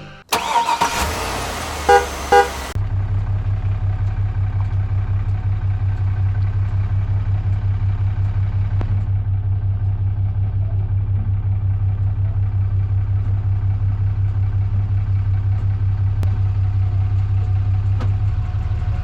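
Two short toots of a vehicle horn about two seconds in, then a vehicle engine idling with a steady low, fast, even pulse.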